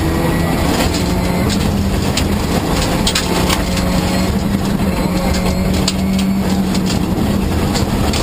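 Rally car's engine running at a steady high pitch under load, heard from inside the cabin, with gravel and small stones clicking and rattling against the underbody as the car drives over a gravel road.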